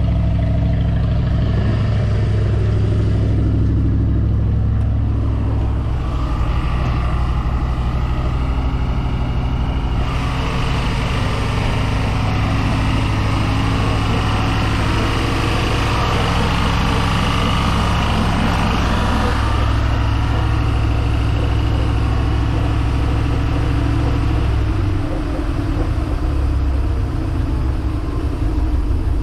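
Boat's inboard engine running steadily at idle, with a low, even drone that turns rougher near the end.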